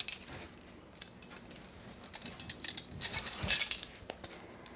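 Light metallic clinking and rattling from a ring of metal measuring spoons and a shaker bottle of curing salt being handled. It comes in two short bursts, about two and three seconds in.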